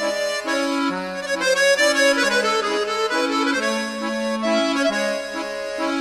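Instrumental background music: a melody of held notes over a bass line that alternates between two pitches.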